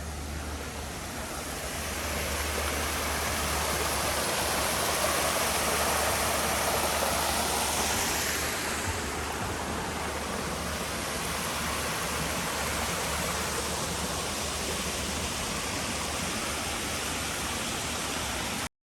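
Water rushing down Huntington Falls, an artificial waterfall, as a steady roar of falling water. It grows louder over the first few seconds and cuts off suddenly near the end.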